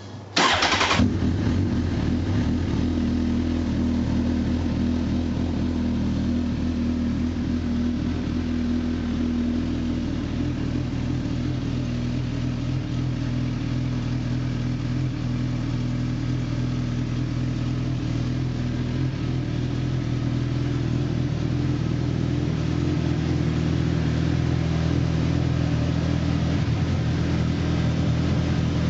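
Suzuki GSX-R1000 L0's inline-four engine starting about half a second in with a short burst, then idling steadily through a Yoshimura TRC-D dual exhaust.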